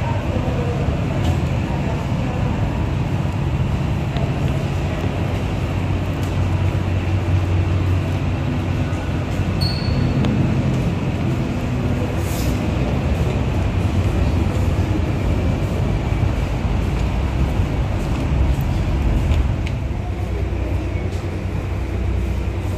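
Steady low droning hum of aircraft and airport gate machinery, with a short high beep about ten seconds in.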